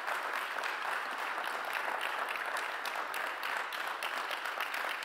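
Audience applauding, many hands clapping in a steady, dense patter.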